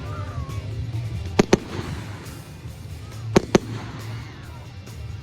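Fireworks exploding: two pairs of sharp bangs about two seconds apart, over music playing in the background.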